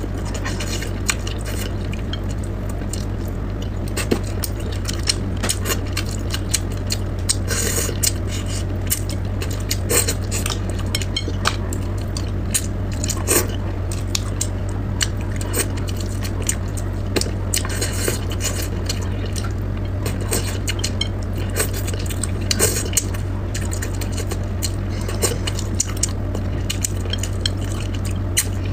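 Eating sounds: chopsticks clicking and scraping against a plate, with wet mouth noises, as many short irregular clicks over a steady low hum.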